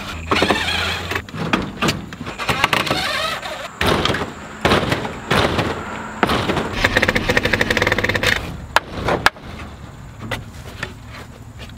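A hammer knocking apart the wooden frame of a nesting box: a string of sharp knocks on wood, the two loudest about three quarters of the way in, with stretches of a cordless drill whirring between them.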